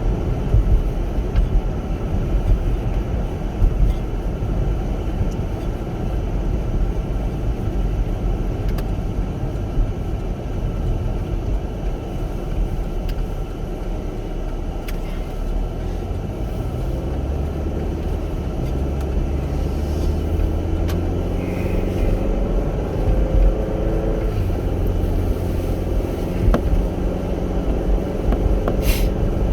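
Chevrolet Captiva SUV driving, with a steady low road rumble. About halfway through the engine note rises as the car accelerates, drops near the three-quarter mark as it shifts up, then holds steady.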